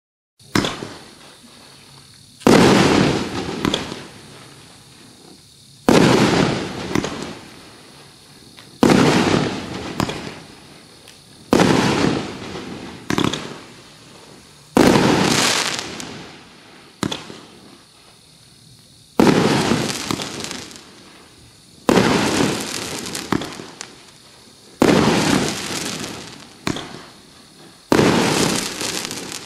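A Happy Family Fireworks JL1643 14-shot consumer firework cake firing its shots one after another, about a dozen of them, one every two to three seconds. Each shot is a sharp bang that trails off over a second or two.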